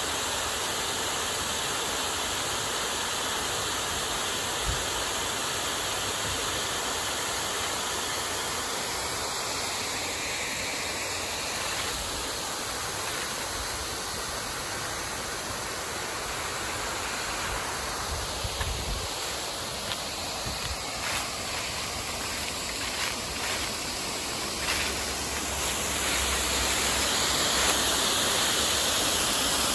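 Water pouring over a stepped stone dam spillway, a steady rushing that grows louder near the end.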